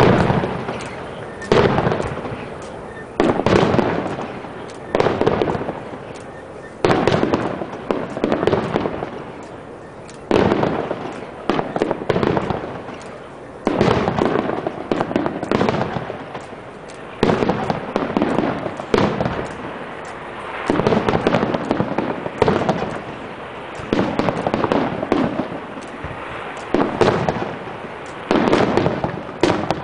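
Aerial fireworks shells bursting one after another, roughly every one to two seconds; each sharp bang trails off over a second or so.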